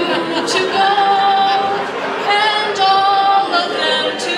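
A woman singing unaccompanied, holding several long, high notes.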